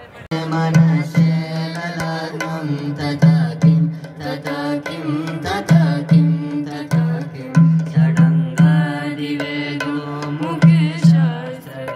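Live Indian devotional chanting: a small group of singers holding and gliding notes over a steady low drone, with hand strokes on a double-headed barrel drum, amplified through loudspeakers. It begins abruptly just after the start.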